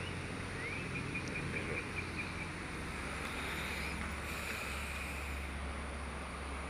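Steady outdoor background rumble and hiss. A short run of about eight quick, high chirps comes about half a second in.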